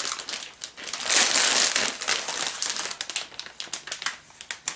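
Crinkly plastic packaging rustling and crackling as a motherboard is pulled out of it by hand, loudest about a second in, then a string of smaller crackles that tail off.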